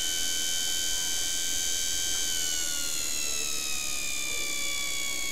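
510 W electric motor running with a steady high whine. About two seconds in, the whine starts falling slowly in pitch as the motor slows: it is running off the supercapacitor bank and its supply voltage is dropping.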